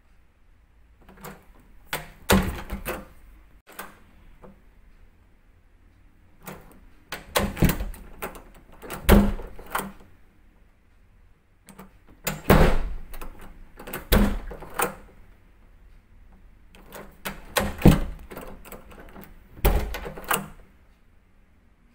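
A room door being opened and closed over and over: latch and handle clicks and the thud of the door, in about four groups roughly five seconds apart.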